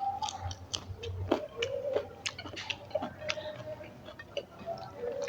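A person chewing food close to the microphone, with many small, irregular wet mouth clicks and smacks.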